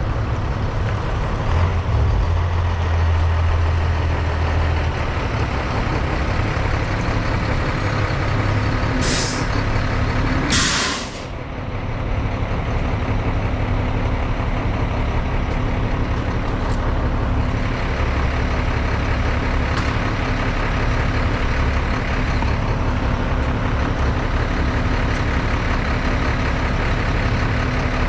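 Heavy diesel engine running steadily, with two short bursts of hissing air about nine and eleven seconds in.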